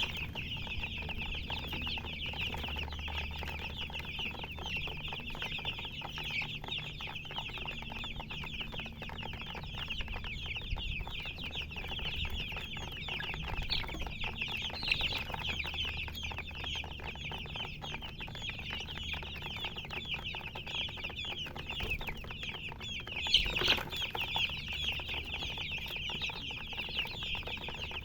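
A group of baby chicks peeping continuously, a dense chorus of many short, high cheeps overlapping without pause, with one louder call about 23 seconds in.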